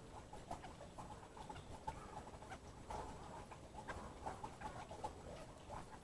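Faint chatter of green parakeets: a quick scatter of short chirps and clicks, several a second, with no steady rhythm.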